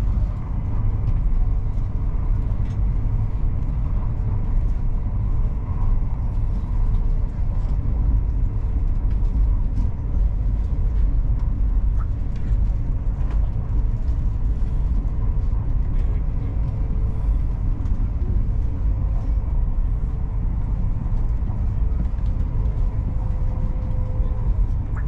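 Steady low rumble of a high-speed train running along the line, heard from inside the passenger car, with a faint steady hum over it.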